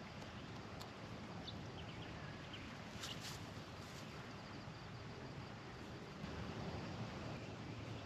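Quiet outdoor ambience with a steady low background hum of noise. Faint, short bird chirps come about one and a half to two and a half seconds in, and a brief rustle comes around three seconds in.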